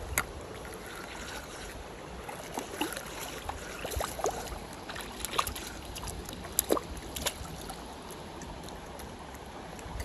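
Mountain stream water running steadily, with a scatter of short sharp clicks and splashes over a few seconds in the middle.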